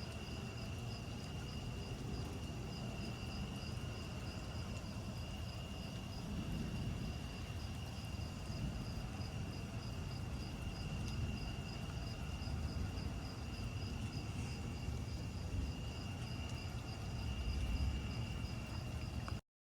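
Insects, cricket-like, trilling steadily: one high even tone with a faster pulsing one above it, over a low uneven rumble. It all cuts off suddenly near the end.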